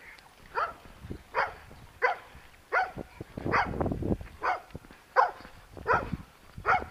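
A dog giving short, high yelps that each drop in pitch, repeated steadily about every two-thirds of a second, around ten in a row.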